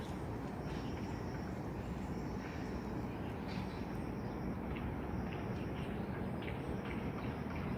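Short, scattered bird chirps over a steady low rumble, with a faint, steady high insect hum.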